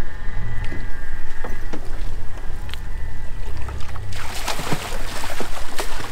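Steady low rumble of the idling boat, with a faint high whine in the first few seconds; about four seconds in, a hooked broadbill swordfish starts thrashing at the surface beside the hull, giving loud splashing with sharp slaps of water.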